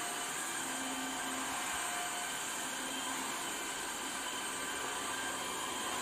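Cordless stick vacuum cleaner running steadily as it is pushed over a tiled floor: a constant hiss of rushing air with faint steady motor tones.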